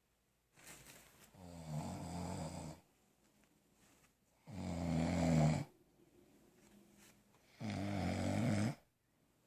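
Loud snoring from a sleeper: three long, rattling snores about three seconds apart, each about a second long, with quiet breathing between.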